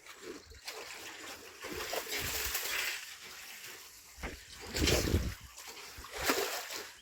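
Water splashing and sloshing in a few bursts, the loudest about five seconds in and again a little after six seconds.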